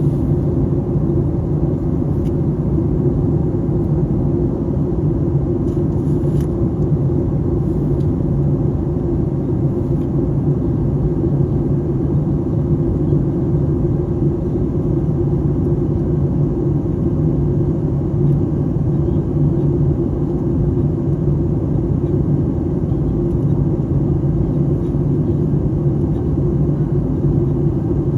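Airliner cabin noise in flight: the steady, low drone of the jet engines and airflow heard from a passenger seat.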